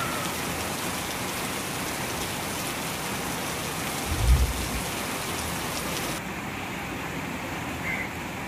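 Heavy rain falling steadily on trees and ground: a dense, even hiss. A brief low thump about four seconds in is the loudest moment.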